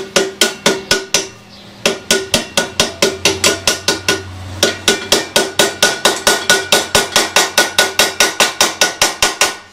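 Small hand hammer striking a tinned copper jug on an iron stake in quick, even blows, about five a second, each ringing with a metallic tone, with a brief break a little over a second in. This is the coppersmith setting a hand-rolled copper rivet.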